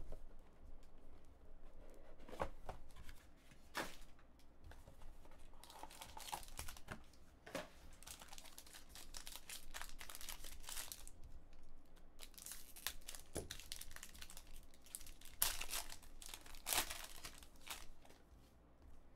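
A hockey card pack being handled and opened: its cardboard box slid apart and the wrapper torn and crinkled, in a string of irregular rustles and short rips.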